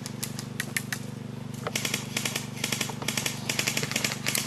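Airsoft guns firing in short full-auto bursts: a few single sharp clicks, then from about two seconds in repeated bursts of rapid clicking. A steady low hum runs underneath.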